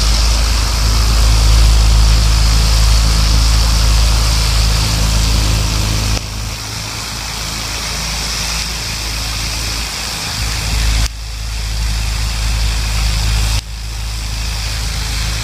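Pressure washer with a turbo nozzle spraying a painted wall to strip the paint: the machine's engine hums steadily under a loud hiss of water. The sound drops or shifts abruptly about six, eleven and thirteen and a half seconds in.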